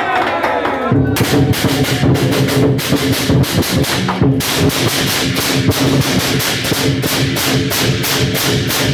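A crowd shouts and cheers. About a second in, loud festive percussion cuts in as a rapid, crackling run of hits. After a few seconds it settles into a steady, fast beat over sustained low tones.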